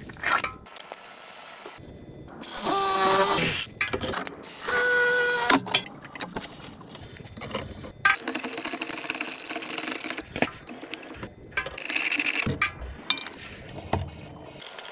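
Pliers turning and gripping the brass union nuts of a water pressure regulator valve, making metallic scraping, clicking and squeaking in several separate bursts of a second or two.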